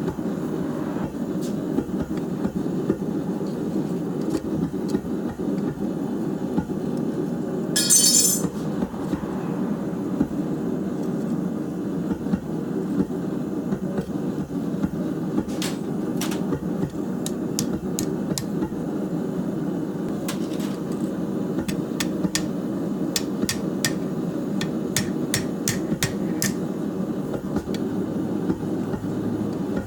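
Hammer blows on hot steel at an anvil, single strikes and short runs, with a quick series of blows in the second half, over the steady low roar of a forge. A brief hiss about eight seconds in is the loudest sound.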